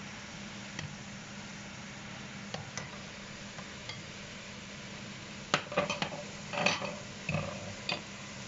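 Potato chips deep-frying in hot oil in a pan: a steady sizzle and bubbling over a low hum. A few light ticks come early, then from about halfway a run of sharp metal clinks and clatters from the cooking utensils against the pan and bowl.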